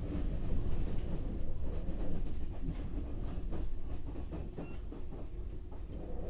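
Kintetsu 6407-series electric train running, heard binaurally from inside the car: a steady low rumble with the wheels clacking over rail joints. It grows slightly quieter toward the end.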